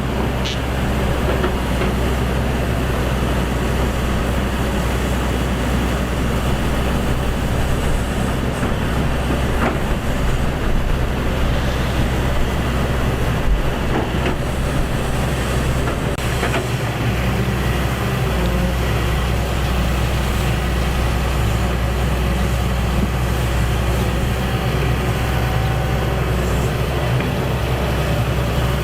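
Excavator's diesel engine running steadily, a continuous low drone with no let-up.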